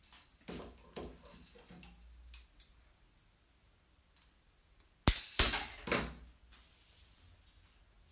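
Bonsai training wire handled with light rustles and clicks, then snipped with wire cutters about five seconds in: a sharp snap followed by a brief metallic clatter.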